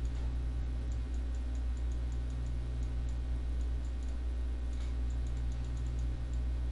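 Faint, irregular clicks of a computer mouse button as brush strokes are drawn, several a second, over a steady low electrical hum.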